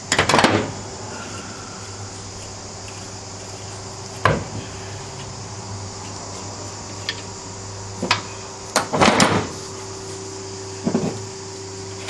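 Scattered metallic clinks and knocks of hand tools and parts as a VW Superbug engine is taken apart: a short clatter right at the start, single knocks about four and eight seconds in, a longer clatter around nine seconds and one more near eleven. A steady low hum sits underneath.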